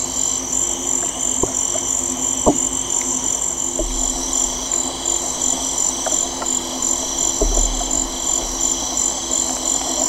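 Amazon rainforest soundscape from a sound installation, layering the forest's ambient sounds with a tree's acoustic emissions picked up by contact microphones. A steady, evenly pulsing high-pitched chorus runs over two pulsing low tones, with a few sharp clicks: one about a second and a half in and a louder one about two and a half seconds in.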